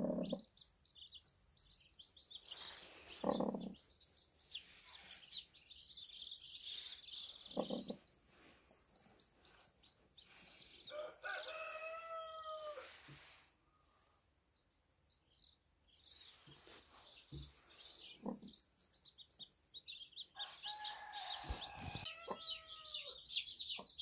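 Newly hatched Cheonggye chicks peeping in quick runs of short high chirps, with two longer drawn-out chicken calls about halfway and near the end. A few soft bumps of hands handling the nest, and the sound drops out briefly about halfway.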